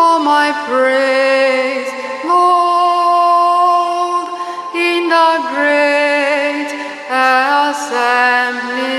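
A solo voice sings the slow refrain of a responsorial psalm in long held notes, with vibrato on some of them and short breaths between phrases.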